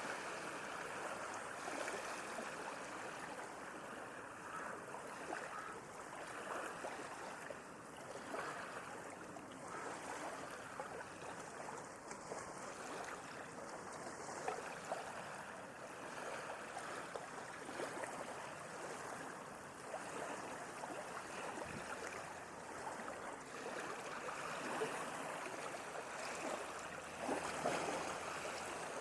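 Sea water washing and lapping at the shore: a continuous watery rush with fine fizzing and gentle swells in loudness, one slightly fuller wash near the end.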